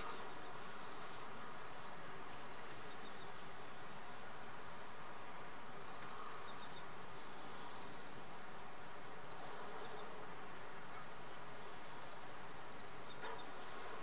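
Short, high trilled chirps from an unseen small creature, repeating about every second and a half, over a steady hiss.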